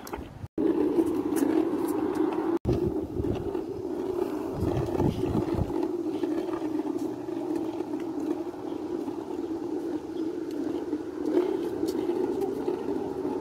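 Small plastic wheels of a child's three-wheeled kick scooter rolling over an asphalt footpath, making a steady rolling hum that cuts out briefly twice in the first few seconds.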